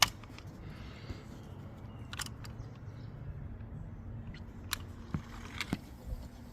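A few sharp, separate clicks and knocks over a low steady rumble, the loudest right at the start.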